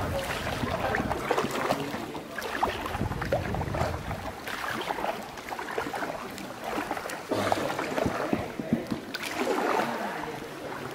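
Paddle strokes dipping and splashing in calm water as an inflatable sea canoe is paddled along, with irregular drips and small splashes.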